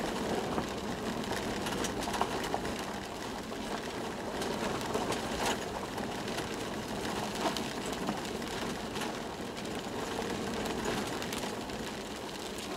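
Cabin noise of a moving Toyota Land Cruiser 120: a steady engine and tyre drone with scattered knocks and rattles.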